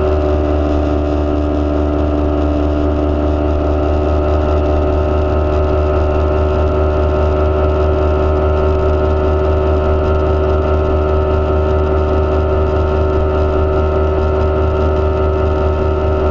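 Bass boat's outboard motor running steadily at high cruising speed, with a level, unchanging pitch and the rush of water and wind under it.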